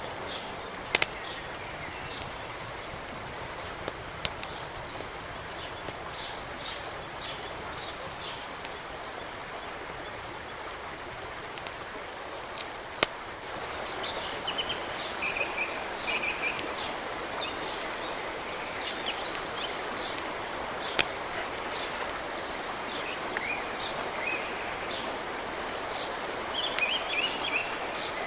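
Small birds chirping and singing over a steady background hiss of forest ambience, with a few single sharp clicks or snaps.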